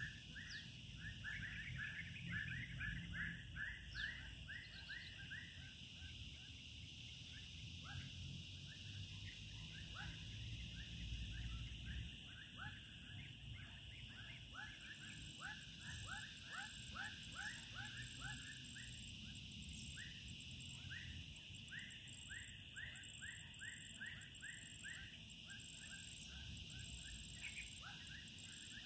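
Evening chorus of insects and small animals: a steady high-pitched insect drone, with runs of rapid repeated chirping calls, several a second, coming and going.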